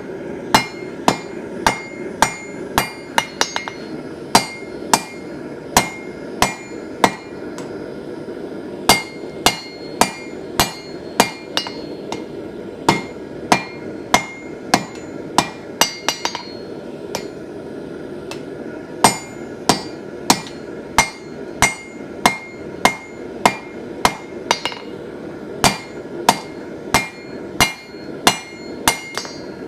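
A 1.5-kilogram hand hammer strikes hot steel on an anvil in runs of about one to two blows a second, each blow ringing, with short breaks about eight and eighteen seconds in. A steady low rush runs underneath.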